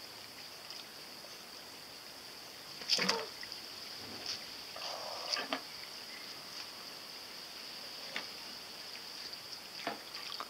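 A small homemade toy foil kayak towed on a string through still pool water, with a sharp splash about three seconds in and a few fainter splashes and knocks after it. A steady high-pitched hum sits underneath.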